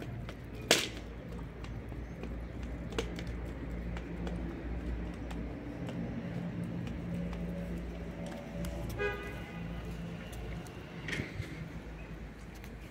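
Cats eating wet food off a plate: scattered chewing smacks and clicks, the sharpest less than a second in, over a low steady hum. A brief pitched tone sounds about two-thirds of the way through.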